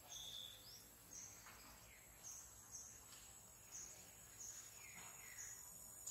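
Faint insect chirping, about two chirps a second, over a steady high insect drone, with a few faint bird calls.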